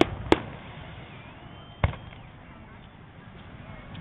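Aerial fireworks shells bursting in sharp bangs: a loud one just after the start and a weaker one about a second and a half later, with their echoes dying away.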